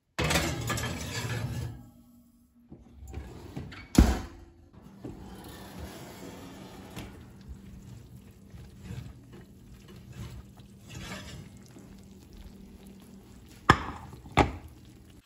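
Kitchen work noises while baking: a short burst of rushing noise at the start, a sharp knock about four seconds in, then small clicks and knocks of utensils and dishes, with two sharp clicks near the end.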